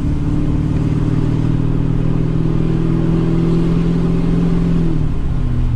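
Straight-piped 6.6 L LBZ Duramax V8 turbo-diesel exhaust under steady acceleration, heard inside the truck's cab. The engine note rises slowly, then drops to a lower steady drone about five seconds in, as the transmission upshifts or the throttle eases.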